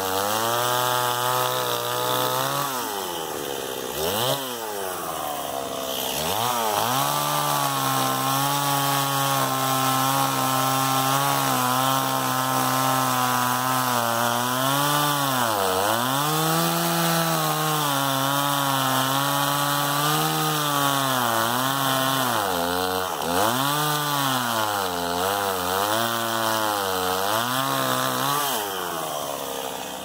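STIHL MS 260 50 cc two-stroke chainsaw running at high revs while cutting a log. Its pitch sags and recovers several times as the chain loads up in the wood and the throttle is eased and reopened. It falls away near the end.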